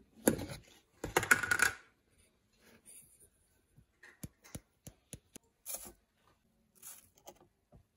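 Lid of a coffee canister pulled off with two loud scraping clatters in the first two seconds, then a metal scoop ticking several times against the canister and filter and ground coffee sifting into a mesh coffee-maker filter.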